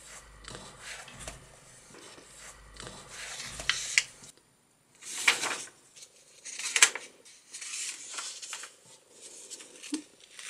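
Paper pages of a hardback dot-grid notebook being turned by hand: several rustling page turns, the loudest about five and seven seconds in.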